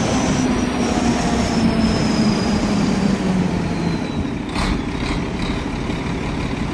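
Heavy machine running steadily, its low drone and a high whine slowly falling in pitch, with a short clatter about four and a half seconds in.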